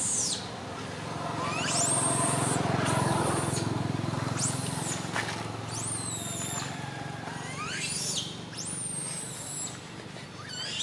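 Repeated high whistled calls, each sweeping steeply up and falling away, about once every second or so, over a low engine drone that swells about two to five seconds in, as of a vehicle passing.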